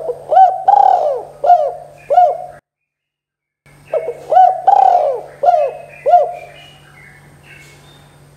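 Spotted dove cooing in two phrases of about five short, rising-and-falling coos each, the second phrase starting about four seconds in after a brief silent break. Faint higher chirps follow near the end.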